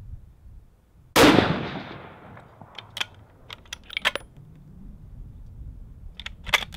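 A single shot from a Savage bolt-action rifle in 6.5 Creedmoor, a sharp report that echoes away over about a second. Then come quick metallic clicks of the bolt being worked to eject the spent case and chamber another round. A low wind rumble sits under it all.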